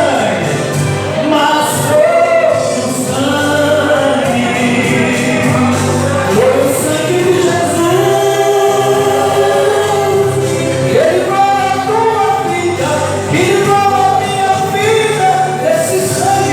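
Worship band playing a gospel song, with a group of singers singing together over the band.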